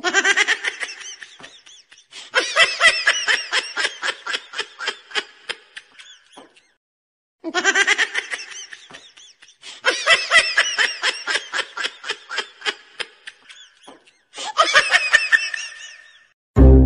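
High-pitched laughter in five bouts of rapid pulses separated by short pauses. The same stretches of laugh recur, as in a looped laughing sound effect.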